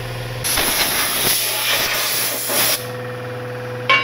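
Compressed air hissing from an air tool for about two seconds, then cutting off, over a steady low shop hum.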